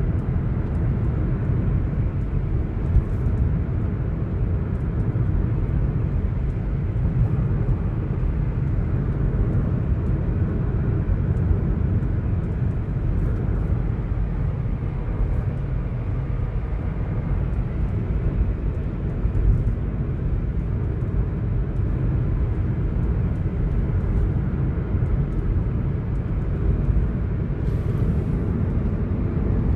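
Honda City driving at steady speed: a continuous low road and engine drone, with faint irregular ticks over it.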